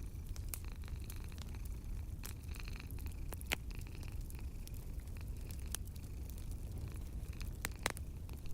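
Wood fire crackling in a fireplace: scattered sharp pops over a steady low rumble, with two louder pops, one about three and a half seconds in and one near the end.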